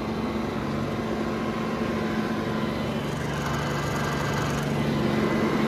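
Mahindra Oja 2127 compact tractor's three-cylinder diesel engine running steadily as the tractor turns in the field, getting slightly louder near the end.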